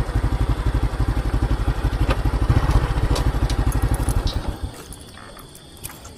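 A small engine running at a steady, even beat, then switched off about four and a half seconds in, leaving a few light clicks.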